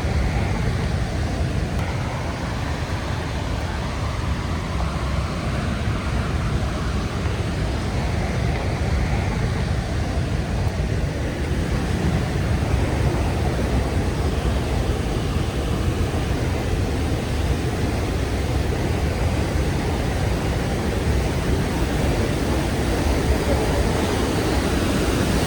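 Rhine Falls, a large river waterfall, roaring steadily as a dense, unbroken rush of falling water heavy in the low end.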